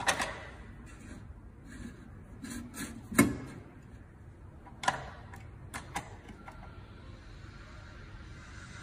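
Several sharp clicks and knocks, the loudest about three seconds in, then a faint steady hum from about seven seconds on.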